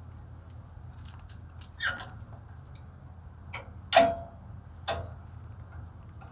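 Sharp metallic clicks and clinks as parking brake shoe retaining clips and hardware are worked into place by hand. There are about seven of them, the loudest about four seconds in with a brief ring. A steady low hum runs underneath.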